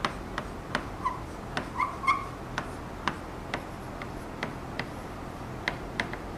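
Chalk tapping and scraping on a blackboard as words are written: irregular sharp clicks, about two a second. Between about one and two seconds in there are a few short, squeaky chirps.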